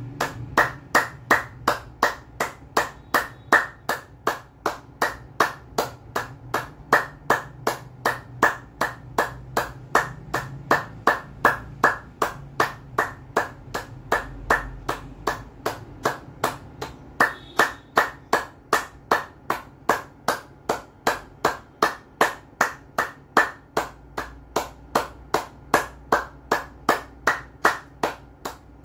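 One person clapping palm to palm in a steady, even rhythm, a little over two claps a second, done as a clapping exercise.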